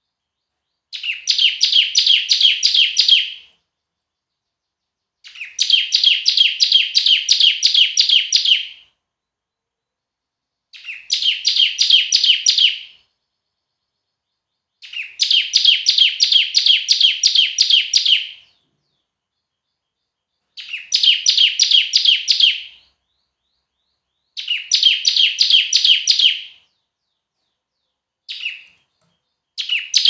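Bar-winged prinia (ciblek) singing: loud bouts of rapidly repeated high, sharp notes, each bout lasting two to four seconds, with short pauses between them, about seven bouts in all.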